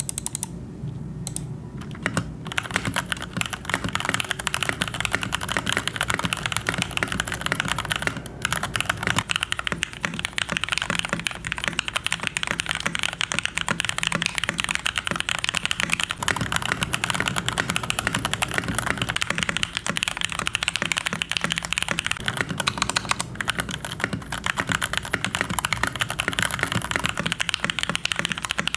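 Fast, continuous typing on a mechanical keyboard (Rakk Lam-Ang Pro) with Gateron Milky Red linear switches, a dense run of key clacks after a few scattered keystrokes at the start, with short pauses about 8 and 23 seconds in.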